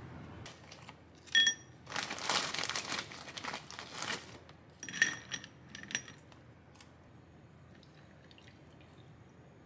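A plastic bag crinkling as ice is handled, with ice cubes clinking and ringing against a stemmed drinking glass: a sharp clink about a second in, several seconds of crinkling, then a few more clinks about five seconds in.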